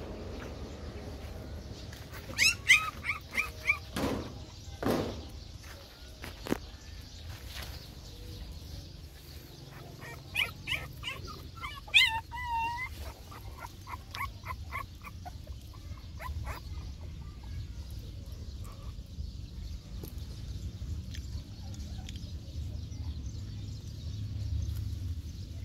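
Young puppies whimpering and yipping in two runs of quick high-pitched cries, one a couple of seconds in and another around the middle, with two knocks in between.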